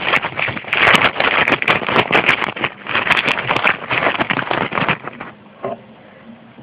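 An animal's laboured, rasping breathing with a crackling rattle, loud and close, in surges about a second apart, the sign of its breathing problem; it stops about five seconds in.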